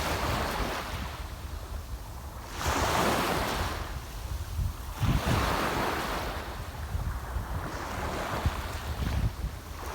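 Sea waves washing onto the shore, three surges a few seconds apart, with a steady low rumble of wind on the microphone.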